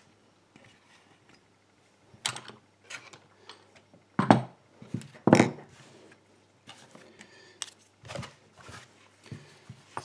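Rummaging for a pinning tray: scattered clicks, knocks and clatters of hard objects being moved, the loudest two a second apart near the middle.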